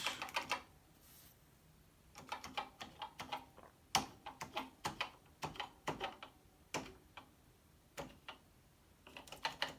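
Keys of a Commodore PET 8032 business keyboard being pressed one at a time, giving irregular clicks in small groups with short pauses between. The keys are being tried one after another to check that they register after their contacts were cleaned.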